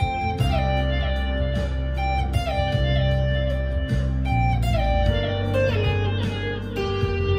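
Harley Benton SC Custom II electric guitar through an amplifier's crunch channel, mildly overdriven, playing a single-note lead line with string bends and slides over sustained low notes.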